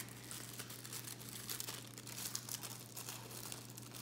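Clear plastic packaging bags crinkling as they are handled, an irregular run of small crackles.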